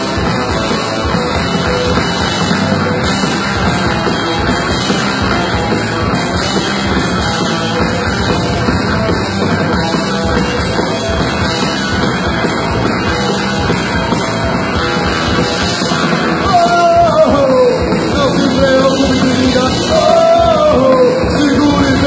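Live punk rock band playing: electric guitar, bass guitar and drum kit. It gets louder about two-thirds of the way in, with high sliding notes over the band.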